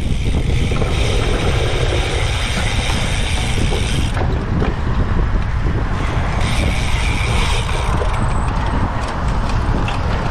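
Cyclocross bike rattling over rough ground at race speed, its drivetrain clicking and ratcheting, under steady wind rumble on the microphone. The rattling comes and goes in stretches.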